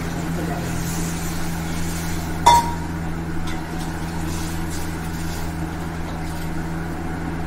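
A single ringing clink of a stainless-steel bowl striking the rim of a steel pressure cooker about two and a half seconds in, over a steady low hum.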